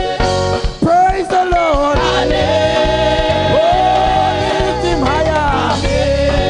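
Gospel worship music: several singers holding and sliding between notes over a live band, with drums and bass keeping a steady beat.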